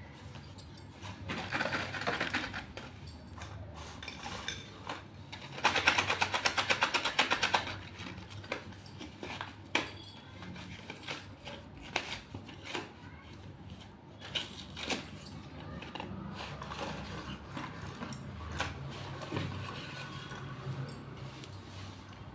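Slate pencils being handled and crunched: scattered sharp clicks and crackly rustling, with a fast run of loud clicks lasting about two seconds, some six seconds in.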